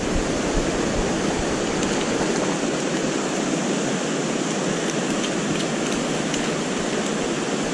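Steady rush of a fast-flowing river running over rocks and rapids.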